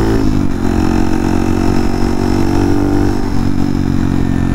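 Honda Monkey's 181 cc big-bore single-cylinder engine running under way through a titanium Over Racing exhaust with a drilled-out baffle. The engine note drops slightly just after the start and again a little past three seconds, otherwise holding steady.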